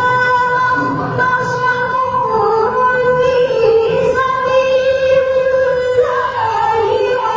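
Music with a woman's voice singing long, held notes.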